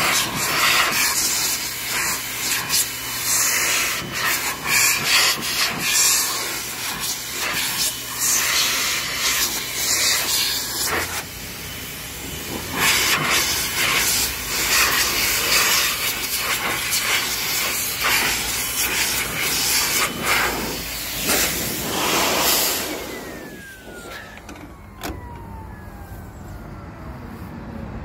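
Shoe-cleaning vacuum station running, air rushing hard through its hose nozzle as it is worked over a suede shoe, the hiss flickering as the nozzle moves and catches on the shoe. A little over 20 seconds in it is switched off: the rush drops away and the motor whine falls steadily in pitch as it winds down.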